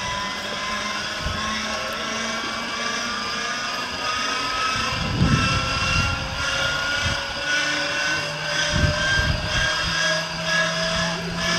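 Starter of a 1000 hp aircraft radial engine being spun up: a whine that rises slowly and steadily in pitch while the engine itself is not yet running, with a few dull thumps.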